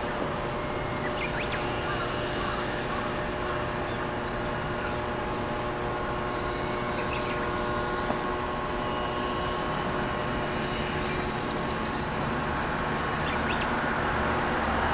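A steady mechanical hum holding several steady tones over a low, even rumble, with a few short bird chirps; a broader noise swells near the end.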